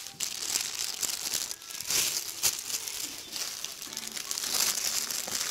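Shiny plastic packaging crinkling and rustling in irregular bursts as hands handle it.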